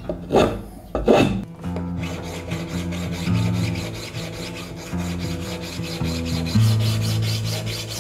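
About three rough rubbing strokes of hand-shaping on a wenge plane body in the first second and a half. Background music follows, with steady bass notes and a light, fast, even beat.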